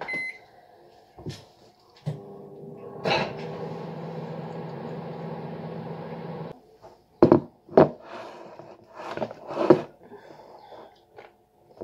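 Microwave oven: a short keypad beep, then the oven running with a steady hum for about four and a half seconds before it cuts off abruptly. Two sharp clacks follow, then a few lighter knocks.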